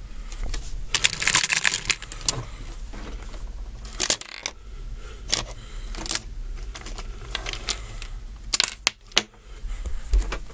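Plastic and metal Beyblade tops and B-Daman toys clicking and clattering as they are picked up and moved by hand: a string of sharp clicks and short rattles, busiest about a second in and again near the end.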